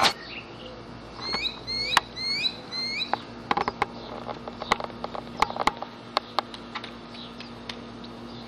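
Corgi puppy giving a quick series of about six high-pitched squeaks, each rising in pitch at the end, followed by a run of sharp clicks and taps.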